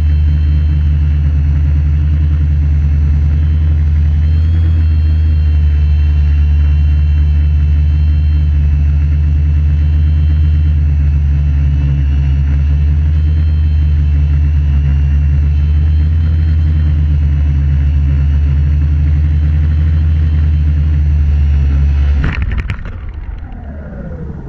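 AeroQuad quadrotor's brushless electric motors and propellers whirring steadily in flight. About 22 seconds in the throttle drops and the whine falls in pitch as the propellers spin down after landing.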